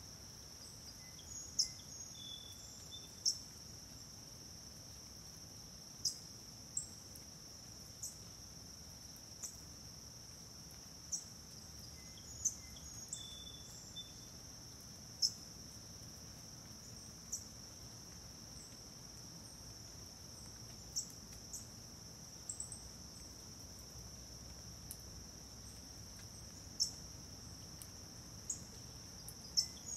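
Steady high-pitched drone of an insect chorus, with short sharp ticks popping out at uneven intervals every second or two.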